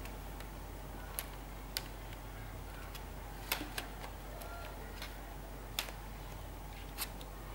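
A handful of sharp plastic clicks and taps, spread a second or so apart, as the battery pack of an Asus Eee PC Seashell netbook is handled and fitted into its bay on the underside. A steady low electrical hum runs underneath.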